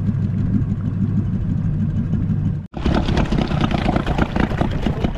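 Small boat outboard motor running steadily. After an abrupt cut it is heard close up at the stern, louder and rougher, with its propeller churning and splashing water in the shallows.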